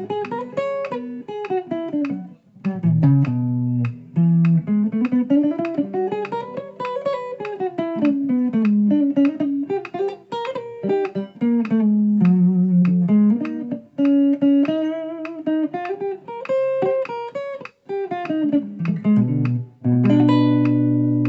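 Les Paul-style electric guitar playing single-note scale runs for modal scale practice, climbing up and back down several times. It ends on a held chord near the end.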